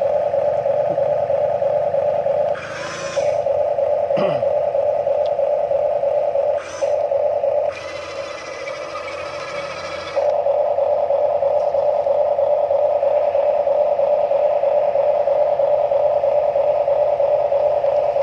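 Huina toy RC excavator's electric motors whining steadily as the boom and arm move. The whine breaks off briefly about three seconds in, again near seven seconds, and for a couple of seconds around the middle, when a quieter, broader mechanical noise takes over.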